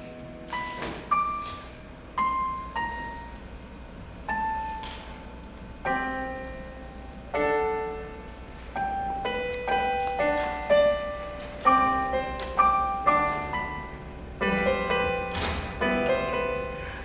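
Piano playing a slow instrumental interlude, single notes at first, then fuller chords growing denser toward the end.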